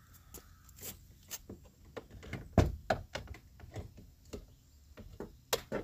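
Scattered clicks and knocks of a plastic car door trim panel being handled while a hand works the door-unlock cable behind it, the loudest knock about halfway through.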